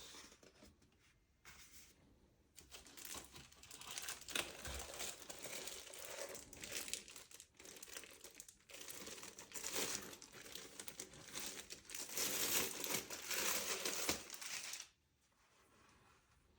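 Packaging wrap crinkling and tearing in irregular handfuls as the award is unwrapped, stopping abruptly near the end.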